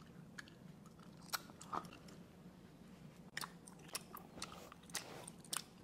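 Playing cards being handled and laid down on a table: irregular light clicks and taps, more frequent in the second half, over a faint steady hum.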